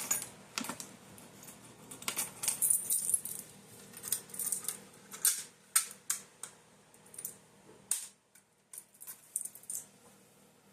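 Irregular clicks and light rattling as a fire alarm pull station is handled and fitted to its mount. The clicks are densest through the middle and thin out near the end.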